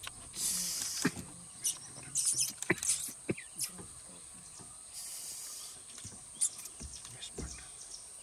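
A steady high-pitched insect drone, broken by scattered sharp clicks and a few short hissing bursts.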